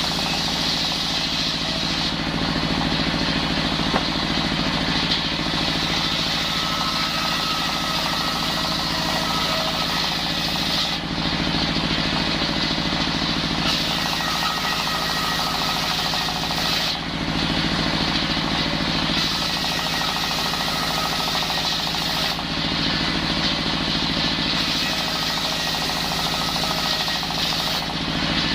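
Engine-driven circular saw running steadily while sawing timber into rafter stock. The sound shifts every few seconds as the blade goes into and comes out of the cuts.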